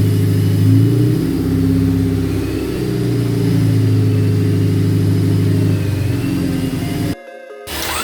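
Honda Civic's four-cylinder engine running steadily, with a small shift in pitch about a second in and again a couple of seconds later. The sound cuts off suddenly about seven seconds in.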